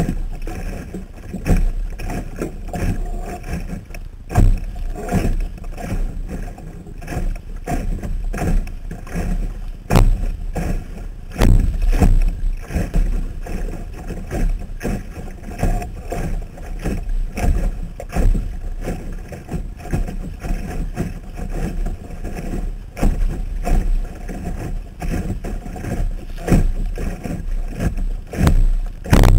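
Water slapping and splashing against a Sunfish sailboat's hull as it sails, picked up by a waterproof camera mounted on the boat. Irregular knocks come every second or so over a steady low rumble.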